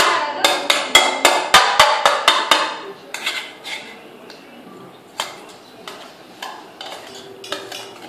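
Stainless steel plate clattering: rapid ringing metal knocks, about four a second, for the first three seconds, then a few fainter scattered knocks.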